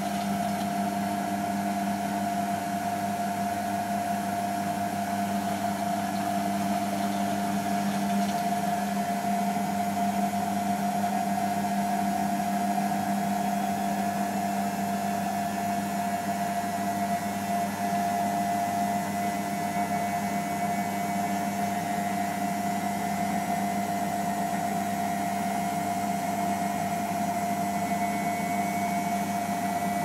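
Beko WMP511 washing machine drum spinning at 300 rpm in the spin between rinses: a steady motor whine over the hum of the turning drum.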